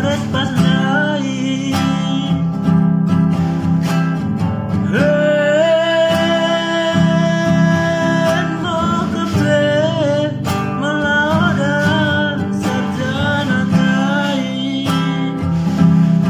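A man singing to his own strummed acoustic guitar, holding one long high note about five seconds in for some three seconds.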